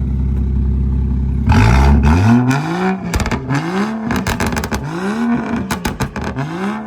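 BMW 335i's N55 turbocharged straight-six, stage 2 tuned, idling and then blipped repeatedly about once a second from about a second and a half in. Each overrun brings loud exhaust pops and crackles.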